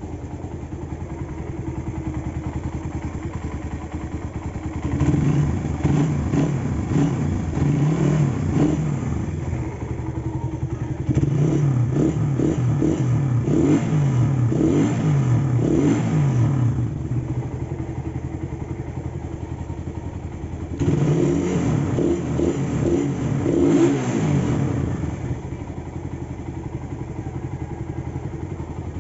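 Suzuki Satria FU motorcycle's single-cylinder four-stroke engine idling, then revved up by hand three times. Each rev is held for several seconds before it drops back to idle.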